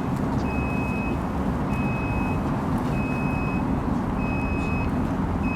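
A tram's reversing warning beeper sounding evenly, about one high beep every 1.2 seconds, over a steady low rumble: the tram is backing up through a track triangle to turn around.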